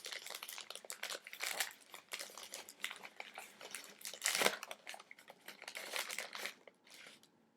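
A small packaging bag crinkling and rustling as it is handled and opened, in irregular crackles, loudest about four and a half seconds in, dying away near the end.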